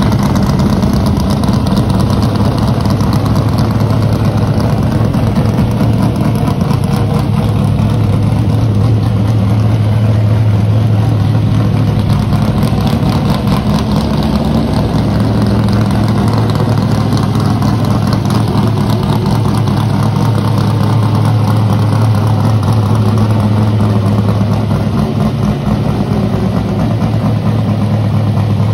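V8 engine of a 1986 Chevrolet Monte Carlo Aerocoupe NASCAR race car idling loudly and steadily.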